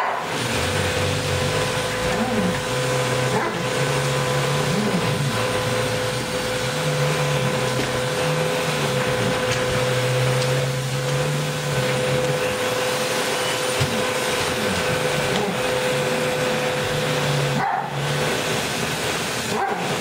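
Canister vacuum cleaner running steadily with a constant whine and rush of air, while a dog growls and barks at its floor head in long low stretches.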